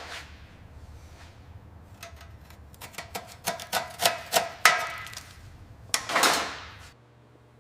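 Workshop metalwork: a run of sharp metallic knocks with a brief ring after each, about ten in two seconds, starting about three seconds in. About a second later comes a longer rasping scrape.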